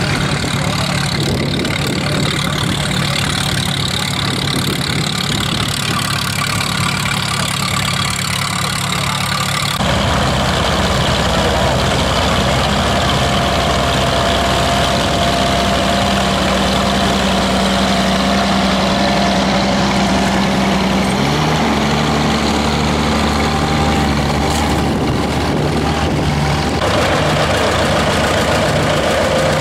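Antique farm tractor engines running steadily under load while pulling plows, the engine note changing abruptly several times as one tractor gives way to another. Near the end it is a John Deere 820's two-cylinder diesel.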